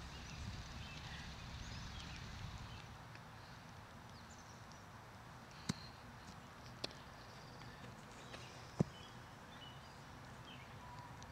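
Open-field ambience: a low rumble that eases after the first few seconds, with faint bird chirps. Three sharp knocks land in the second half, the last and loudest about nine seconds in.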